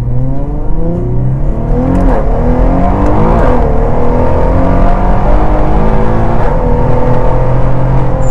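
Infiniti Q50 Red Sport's twin-turbo VR30 V6, built to about 1000 hp on Garrett G25-550 turbos, heard from inside the cabin while accelerating. The engine note climbs and drops with quick upshifts about two seconds and three and a half seconds in, then holds steady as the car cruises.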